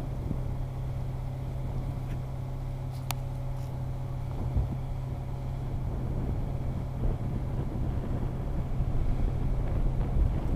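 Heavy diesel engine running steadily, a low even hum, from the truck and lowloader carrying the excavator or the excavator itself. A single sharp click sounds about three seconds in.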